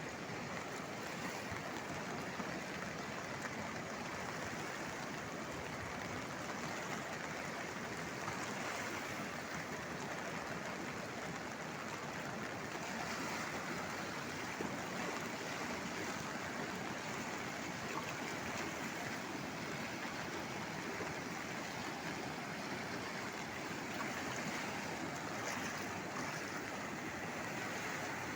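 Swollen river in heavy flood, its water rushing in a steady, unbroken roar.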